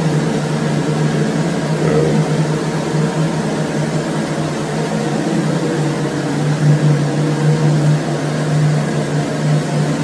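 A steady mechanical hum with a low drone under an even hiss, holding at the same level throughout.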